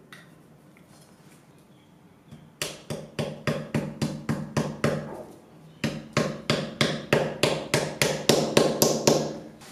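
Ball-peen hammer tapping small round discs into a wooden tabletop. Two runs of quick, light taps, about four a second, with a short pause between them about halfway through.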